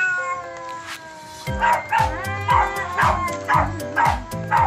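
Cats yowling in a standoff, one long, slowly falling yowl at the start and more cries later, under background music whose steady thumping beat comes in about one and a half seconds in.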